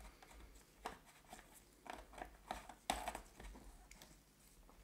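A plastic screw cap being twisted shut on a plastic chemical bottle: a few faint scratchy clicks as the threads turn.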